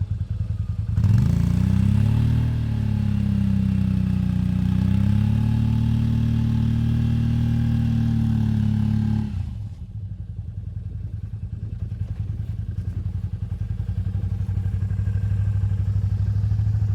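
ATV engine idling, then revving up about a second in and holding high revs, its pitch wavering, for about eight seconds before dropping back to idle.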